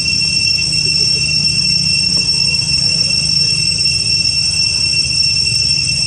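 A steady, high-pitched insect drone over a low rumble.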